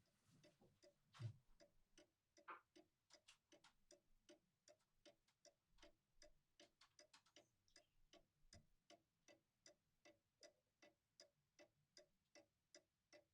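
Faint clock ticking steadily, about two ticks a second, with a couple of soft knocks in the first few seconds.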